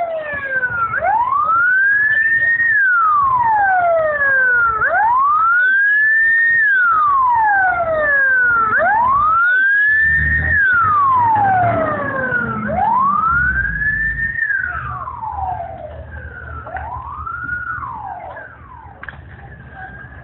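An emergency vehicle's siren wails, slowly rising and falling about every four seconds. It grows fainter after the fourth cycle and stops shortly before the end.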